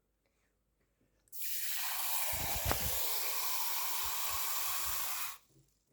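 Water running from a tap, a steady rush that starts suddenly about a second in and stops abruptly about four seconds later, with a few low knocks partway through.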